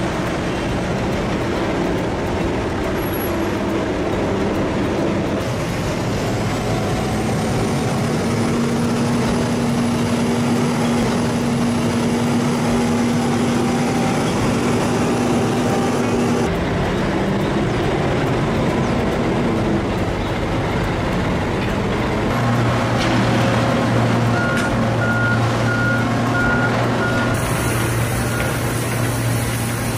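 Heavy cane-handling machinery and trucks running steadily in a sugar mill's cane yard, with a reversing alarm beeping in a regular series near the end.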